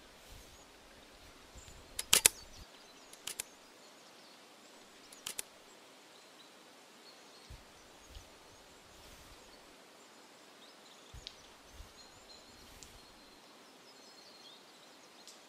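Quiet forest ambience with faint bird chirps, broken by a few sharp cracks, the loudest about two seconds in and smaller ones around three and five seconds in, then a few soft low thumps later on.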